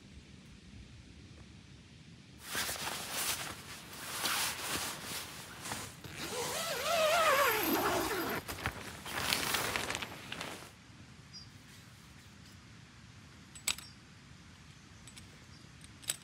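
Nylon tent fabric rustling and creaking as it is handled, loud for about eight seconds with a wavering squeak in the middle. Two short sharp clicks follow near the end.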